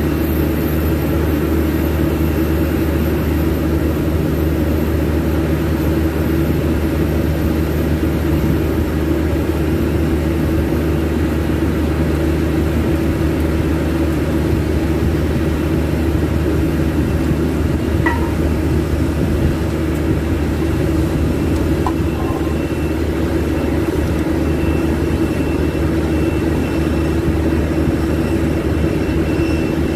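Steady, loud drone of running machinery on an aircraft ramp, with a constant low hum and a faint high whine that does not change. A couple of faint clicks come about two-thirds of the way through.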